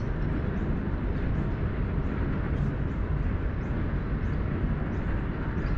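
Steady low outdoor rumble with faint light ticks about twice a second.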